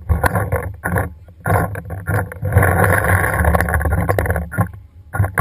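Paintball markers firing in rapid, uneven bursts, with one unbroken stream of fire lasting over a second about halfway through.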